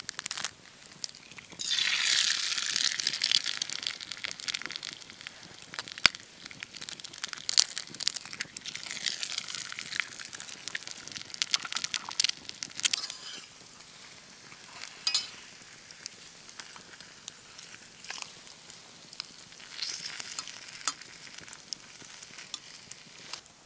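Eggs frying in a small skillet over a campfire. A couple of sharp taps as the egg is cracked, then a loud sizzle about two seconds in as it hits the hot pan. The sizzle settles into steady frying with crackles and pops, and swells again near the end as a fork works under the eggs.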